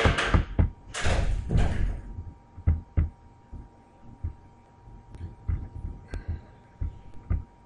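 Scattered sharp clicks and light knocks, like computer mouse clicks and desk handling close to the microphone, after two short breathy rushes of noise in the first two seconds. A faint steady electrical hum sits underneath.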